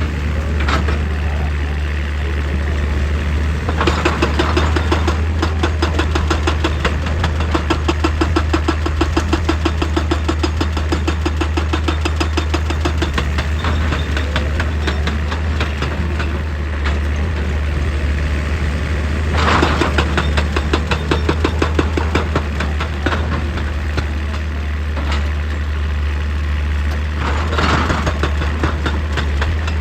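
Excavator's diesel engine running steadily under a low hum, with long runs of rapid, evenly spaced knocking about four seconds in and again around twenty seconds, and a few louder single crashes.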